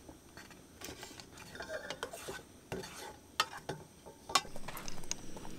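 A spoon stirring and scraping food inside a small metal cooking pot, with irregular light scrapes and two sharp clinks of metal on metal about a second apart in the second half.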